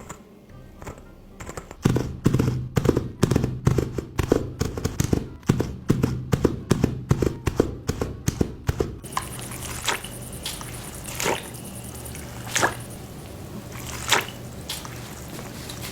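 A fast run of sharp knocks, about five a second, over a low steady hum; about nine seconds in they give way to a steady hiss with a few scattered clicks.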